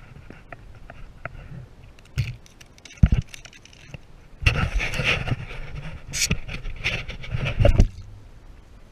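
Northern pike thrashing and splashing at the water surface as it is played to the boat on a lure. A couple of sharp knocks come first; the splashing is loudest and most sustained through the second half.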